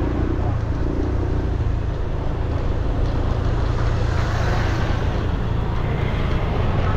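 Steady motor vehicle engine running with traffic noise.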